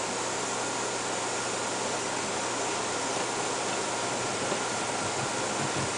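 Steady hiss with a faint hum, like a fan or air conditioning running in the background, with a faint tick about four and a half seconds in.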